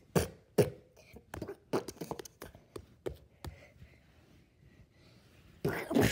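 A fist repeatedly punching a Samsung Galaxy Note 7 phone in its case: a quick series of about ten sharp thuds in the first three and a half seconds. Near the end comes a louder, longer noisy burst.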